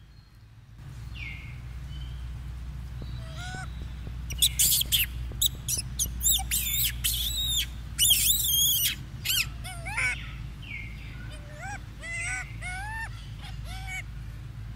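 Many short, high-pitched animal calls that glide up and down in pitch, over a low steady rumble. The calls come thick and loud from about four seconds in, then thin out into shorter rising-and-falling calls.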